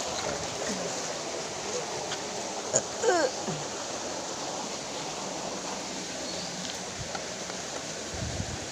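Steady rush of water flowing over the rocks of a shallow mountain stream. A short sound falling in pitch cuts through about three seconds in.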